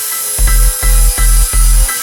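Electronic background music with a heavy pulsing bass beat, a little over two beats a second, coming in after a short pause.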